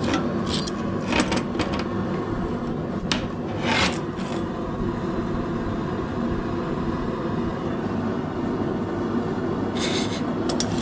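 Short metal scrapes and clicks as a pipe wrench with welded rebar handles is fitted onto a heated steel bar and turned to twist it. These come in the first few seconds and again near the end, over the steady noise of the running forge.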